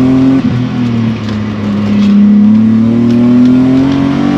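BMW M52B28 2.8-litre straight-six, breathing through a custom stainless exhaust with two catalytic converters and two silencers, pulling hard under acceleration. The revs drop sharply about half a second in, as at a gear change, then climb steadily again, with another drop at the very end.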